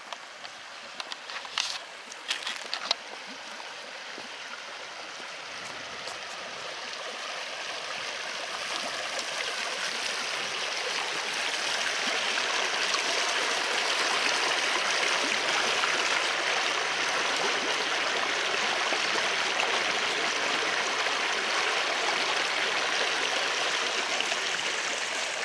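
Shallow rocky woodland brook running and burbling over stones and small cascades, growing louder and then holding steady from about halfway through. A few sharp crunching steps on the leafy path during the first few seconds.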